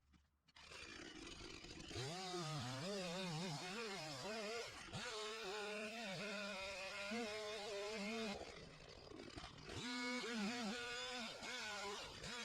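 Small two-stroke chainsaw running at a distance, its engine pitch rising and falling repeatedly as the throttle is worked through cuts, with a short lull about three-quarters of the way in.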